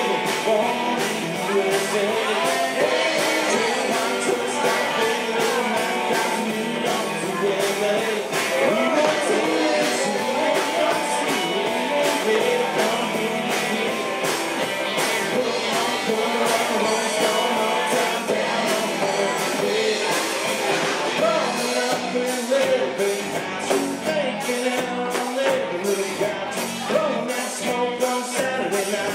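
Live country-rock band playing: electric guitars and bass over drums on a steady, even beat, with a singer's voice over the top.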